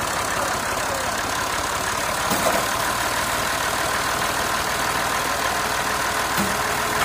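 Massey Ferguson tractor's diesel engine idling steadily, an even low chugging.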